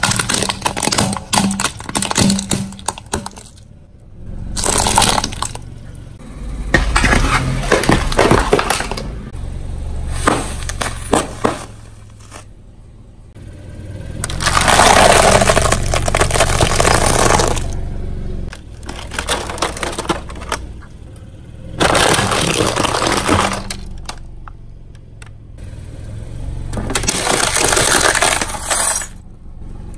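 A car tyre slowly rolling over and crushing a string of objects in turn: hard plastic toys cracking and snapping, and, loudest, a foil tray of crisp fried snacks crunching and crackling. Short breaks fall between the crushes, with a low engine hum underneath.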